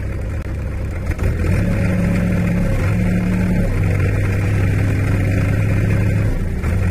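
Farm tractor's diesel engine running, picking up revs about a second in and holding a steady loaded drone as its hydraulics tip up the loaded soil trolley.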